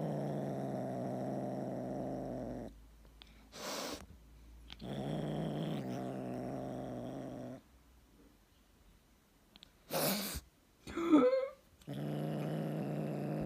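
A tabby kitten growling with a wooden stick held in its mouth: long, steady low growls broken by short hisses. Near the end comes a brief wavering cry that rises in pitch, the loudest sound.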